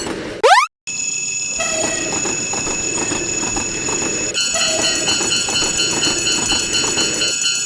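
A short rising swoop sound effect, then after a brief silence a train running past: a steady rumble with clatter and high ringing tones above it, the tones pulsing in the last few seconds.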